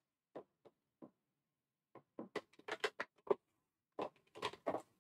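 Soft, irregular clicks and rustles of cardstock being trimmed and handled on a paper trimmer. A few isolated ticks come first, then a denser run of clicks from about two seconds in.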